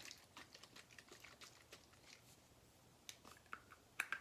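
Soft taps and clicks of a plastic spray bottle of leave-in conditioner being handled, a quick patter of small taps followed by a few louder clicks near the end.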